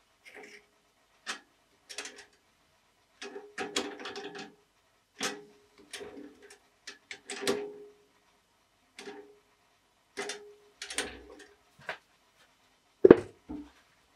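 Irregular clicks, knocks and clatter of hands working at a stopped wood lathe: a wooden blank being seated in the metal chuck and the chuck being tightened. A single louder knock near the end as the tool rest is handled.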